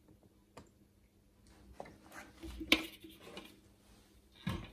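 Hard clicks and clatter from handling a canister filter's plastic parts, loudest a little under three seconds in, with a dull knock near the end.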